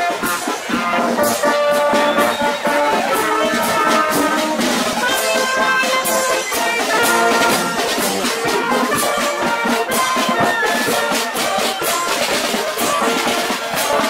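Marching band of brass and drums playing a tune, with a regular drumbeat under the brass.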